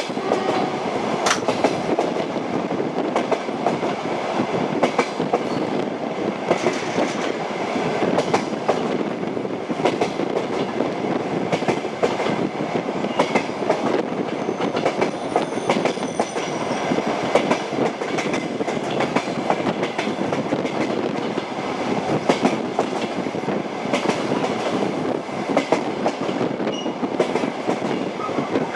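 A moving train: a steady running rumble with the wheels clacking over the rail joints in uneven clicks. A faint high wheel squeal comes in about halfway through.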